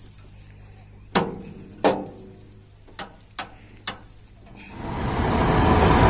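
Roller drive chain of a tractor-mounted harvester pulled by hand to check its slack, clanking against the sheet-metal housing five times, the first two knocks loudest. About five seconds in, the steady noise of the harvester machinery running swells up and takes over.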